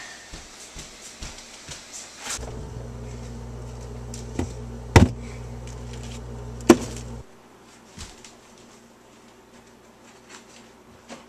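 A steady low electrical hum that starts with a click about two seconds in and cuts off suddenly about five seconds later, with sharp knocks over it, the loudest near the middle; before and after, only faint small knocks and handling noises.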